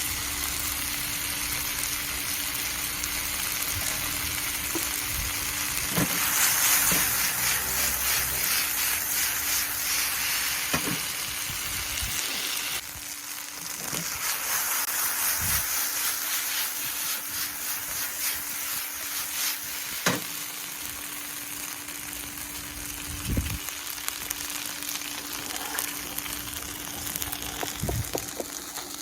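Beef and garlic scapes sizzling as they stir-fry in a pan, with occasional single knocks as they are stirred. The sizzle grows louder about six seconds in and drops back suddenly near the middle.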